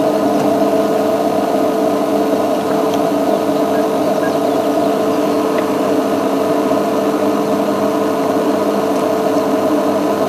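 Steady drone of an idling vehicle engine, low and even with a faint regular pulse, under a constant hiss.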